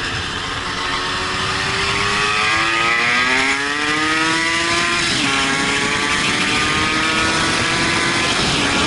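Motorcycle engine heard from onboard over wind rush, rising in pitch as it accelerates. About five seconds in the pitch drops sharply at a gear change, then climbs again more slowly.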